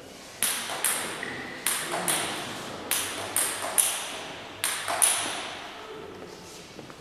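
A table tennis ball bouncing on the table and bat: about nine sharp clicks, mostly in quick pairs, stopping about five seconds in.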